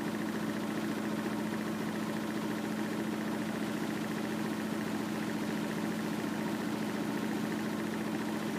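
Front-loading washing machine running mid-cycle: a steady, unchanging mechanical hum.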